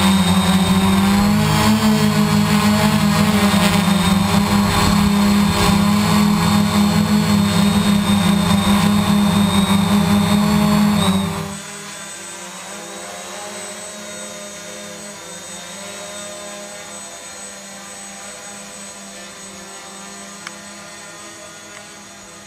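Gaui 500X electric quadcopter's motors and propellers buzzing in flight, loud and close as heard from its onboard camera, the pitch wavering as it manoeuvres. About halfway in the sound cuts to a much quieter buzz of the same quad heard from the ground, with a single faint click near the end.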